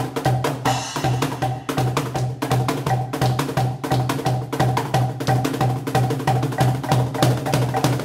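Cajón played with the hands in a fast, even rhythm of sharp slaps and deeper bass strokes, with a steady low tone underneath and a brief shimmer of metal about a second in.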